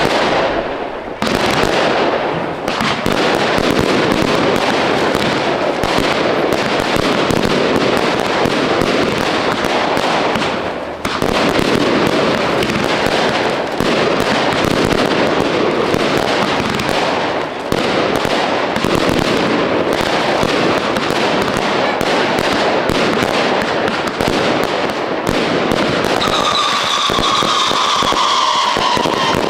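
Fireworks display in full barrage: a dense, continuous run of bangs and crackling bursts. Near the end, whistling rockets add several falling whistles over the bangs.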